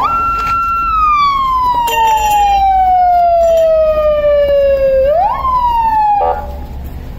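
Police siren wailing. It holds a high note for about a second, then slides slowly down over about four seconds, sweeps up sharply again and falls, cutting off about six seconds in.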